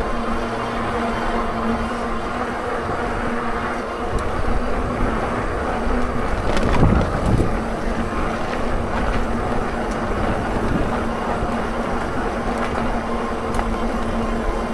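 HITWAY BK10S folding fat-tyre e-bike ridden over a rough, stony trail: a steady rumble of tyres on stones with a faint low hum, and a louder jolt about halfway through.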